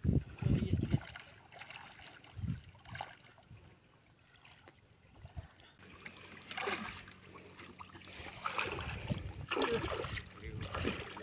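Water sloshing and splashing as people wade through a shallow muddy canal, dragging a net on bamboo poles. The splashing grows denser in the second half as the net is hauled in to the bank and lifted.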